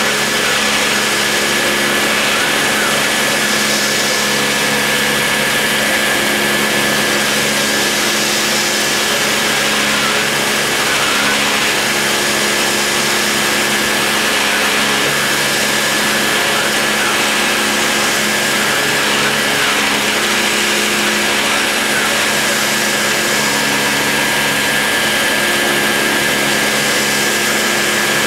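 Dremel rotary tool running at high speed while its pointed bit cuts into MDF: a steady high whine over a constant hiss of cutting noise, with lower machine hums that come and go every few seconds.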